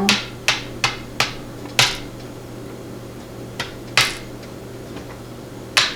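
Sharp little metal clicks and taps, about eight at uneven gaps, from a Master No. 27 padlock's core being taken apart with a plug follower and tools to get the pins out.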